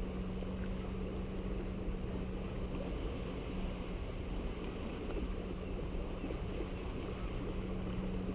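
A boat engine out on the water, droning steadily at one low pitch over a constant haze of wind and water noise.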